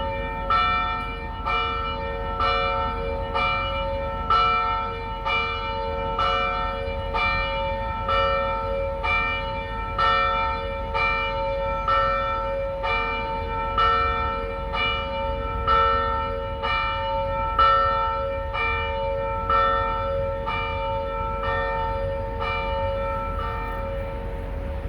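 Church bell swinging and striking about once a second, each stroke's ring carrying over into the next. The strokes stop near the end and the ring fades away.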